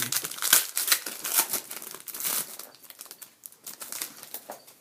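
Foil wrapper of a hockey trading-card pack crinkling as it is handled and opened, a dense crackle that thins out and fades near the end.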